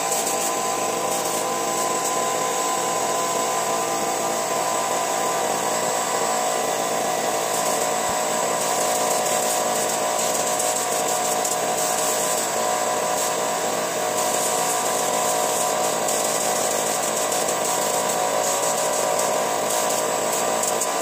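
Steady hum of an air compressor and the hiss of a gravity-feed spray gun spraying finish onto a wooden stool. The hiss grows and fades at times.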